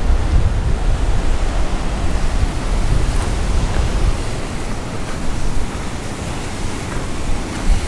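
Wind buffeting the camera's microphone: a loud, steady rushing noise with a fluttering low rumble.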